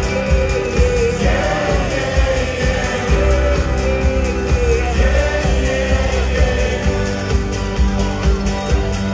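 Live rock band playing with guitars and a lead singer, heard from among the audience.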